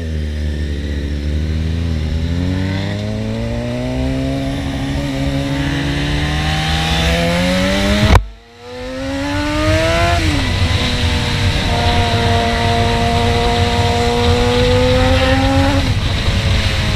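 Suzuki GSX-R sport bike's inline-four engine pulling away and accelerating, its pitch climbing steadily for about eight seconds, with wind noise. The sound cuts out abruptly for a moment, then the engine revs up again, shifts up, holds a steady cruise and drops off as the throttle closes near the end.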